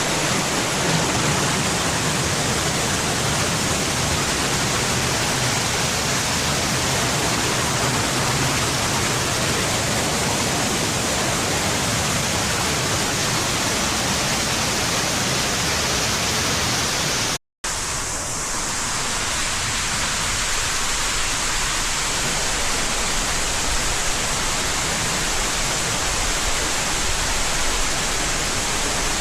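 Waterfall: a steady rush of falling water, cut off for a moment about seventeen seconds in, then carrying on.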